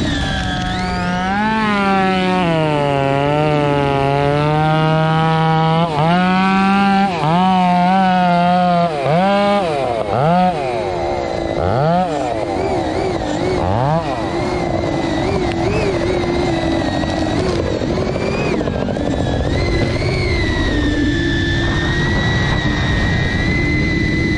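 FPV racing drone's electric motors and propellers whining, the pitch rising and falling as the throttle changes, with several quick dips in the first half. After that the sound becomes rougher and steadier.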